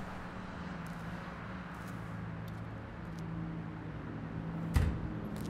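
Steady low background hum and hiss, with a low drone coming in about halfway. Near the end a door shuts with a single sharp bang.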